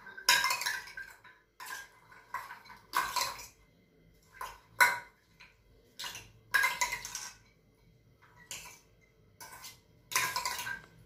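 Spoon scraping and clinking against a stainless steel bowl in a series of short, uneven strokes as chopped fruit salad is stirred and mixed.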